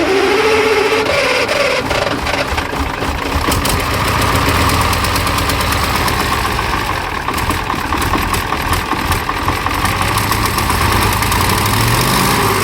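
KamAZ 740 V8 diesel engine catching on its first start after repair, rising in speed and then running steadily and loudly.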